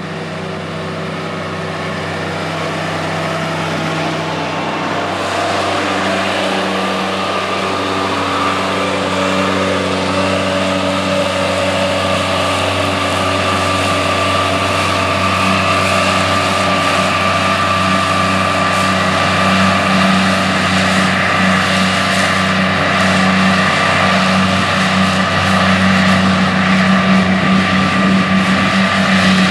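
John Deere 8245R tractor's diesel engine running steadily under load while it drives a 946 MoCo disc mower-conditioner through hay. It grows louder over the first several seconds as it comes closer, then holds steady.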